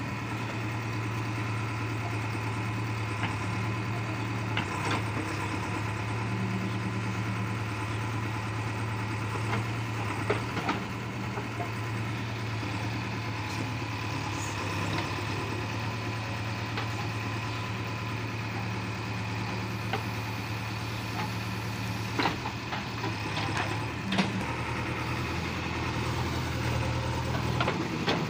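JCB 3DX backhoe loader's diesel engine running steadily as the backhoe digs soil, with a few sharp clanks from the bucket and arm.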